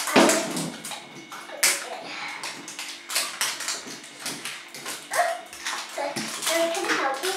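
Paper and plastic wrapping crinkling and tearing as layers are peeled off LOL Surprise Confetti Pop balls, in irregular rustles and rips. Brief sounds from a young child's voice come in near the end.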